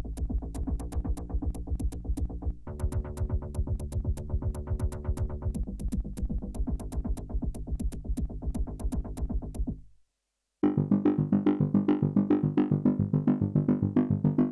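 Roland Gaia SH-01 synthesizer playing patch demos: a bass-heavy sequenced pattern with a steady high ticking over it, changing chord twice, which stops about ten seconds in. After a brief gap a new patch starts, a fast run of short, quickly decaying notes.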